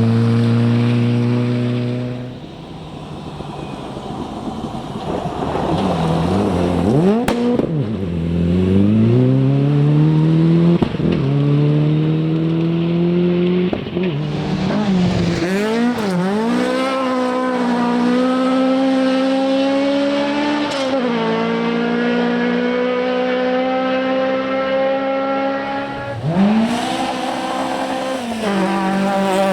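Rally car engines at full throttle. One car's engine fades away, then another comes in hard, its pitch climbing and breaking off sharply at several gear changes and lifts. It holds high revs for several seconds, then dips sharply and picks up again near the end.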